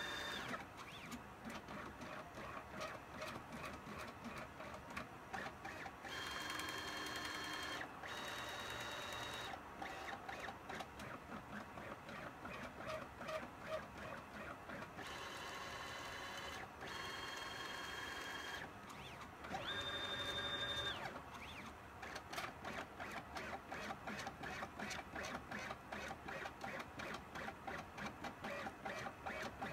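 Stepper motors of a CNC pen plotter moving the pen along its drawing path: rapid whirring chatter through short moves, broken by several steady high-pitched whines of one to two seconds on longer moves, the loudest about two-thirds of the way through.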